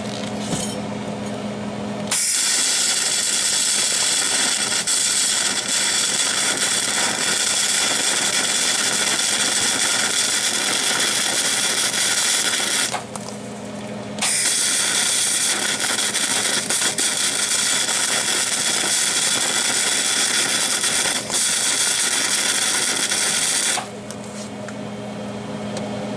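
Gas MIG welder arc sputtering and crackling in two long runs of about ten seconds each, with a brief break between them. The wire is stubbing and bouncing off the sheet-steel plate instead of fusing, which the welder takes for too little voltage. A steady electrical hum sounds in the pause.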